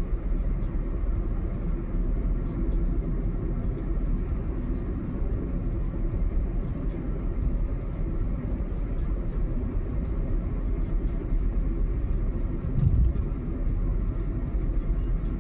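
Car driving on a highway: steady low rumble of tyres and engine, with a brief low thump about 13 seconds in.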